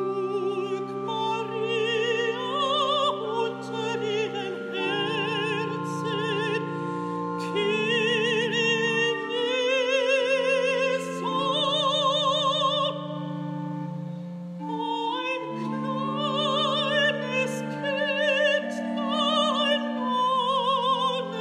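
Soprano singing with a wide vibrato over held organ chords.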